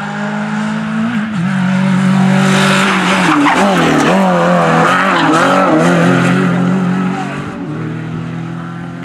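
Hatchback rally car at racing speed passing close by, its engine revving up and down hard with loud tyre noise. The sound is loudest in the middle as it goes past, then fades as it drives away.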